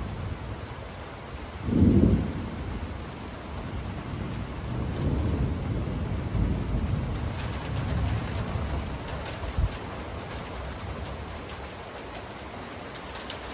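A thunderclap about two seconds in, followed by several seconds of low rumbling thunder over steady heavy rain. Near the end the rain grows closer and denser, with many small drop ticks.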